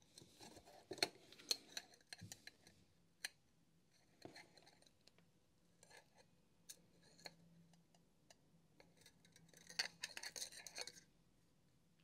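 Light plastic clicks and scraping as the plastic front nozzle cover of a Makita cordless heat gun is worked loose from the hooks holding it on the metal barrel. The noises come in two short clusters, about a second in and near the end, with a few single clicks between.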